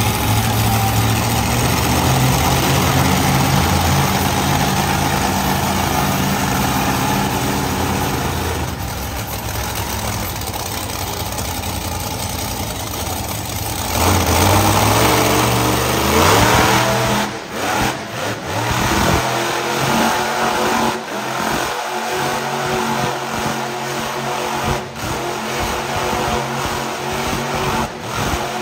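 Monster truck engine running hard, its note holding steady before revving up sharply about halfway through, then rising and falling unevenly in short stabs of throttle, as when the truck is driven in donuts.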